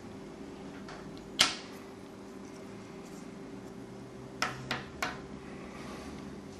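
A sharp click, then a quick run of three smaller clicks a few seconds later, from a supply lead being unplugged from a small circuit board and wires and a battery holder being handled on a bench. A faint steady hum lies underneath.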